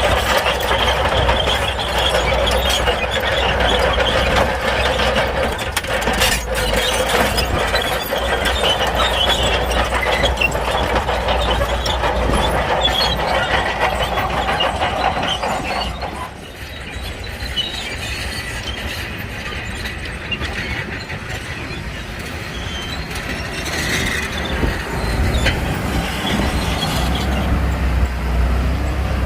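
Shantui crawler bulldozer working: its diesel engine runs steadily under the dense clatter of its steel tracks. The track clatter drops off sharply about halfway through, and the engine comes up louder again near the end.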